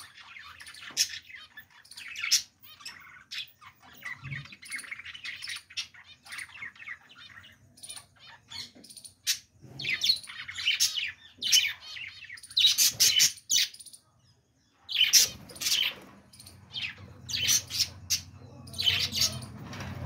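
A flock of caged budgerigars chattering and warbling, a busy run of quick chirps and squeaky notes. The singing stops briefly a little past two-thirds of the way through.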